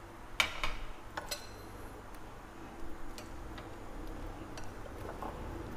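Light, irregular clicks and taps of wooden chopsticks against a ceramic bowl and a metal wire rack as pieces of pork belly are lifted out and set down on the rack.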